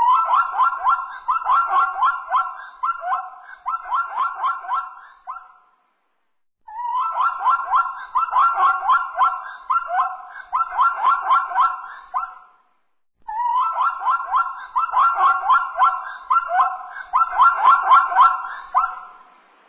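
An animal calling in rapid series of short, pitched calls, about three or four a second, in three bouts of roughly six seconds each with brief pauses between them.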